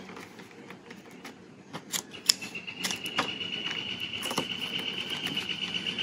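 Tape and paper lunch bags being handled and pressed down on a table: scattered light clicks and taps. A thin, steady high-pitched tone joins a little over two seconds in.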